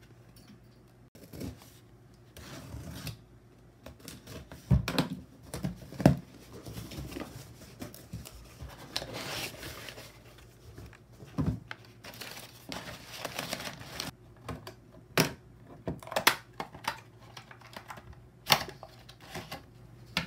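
Cardboard box being unpacked: crumpled kraft packing paper rustling and crackling as it is pulled out, with irregular knocks and taps of cardboard and packaged items handled on a table.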